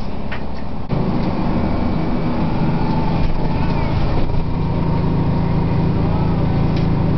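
Detroit Diesel 6V92TA two-stroke V6 diesel of an MCI/Nova Bus Classic city bus running steadily, heard from inside the passenger cabin. The sound steps up abruptly about a second in.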